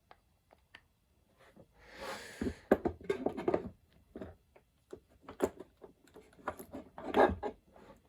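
Small metal lathe accessories being handled and set down by hand: scattered light clicks and knocks, with a scraping stretch about two seconds in. The loudest knocks come near three and seven seconds in.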